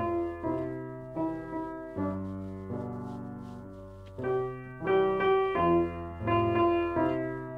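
Piano playing a simple children's-song melody with chords, each note struck and left to fade, with a long held chord dying away a little after halfway.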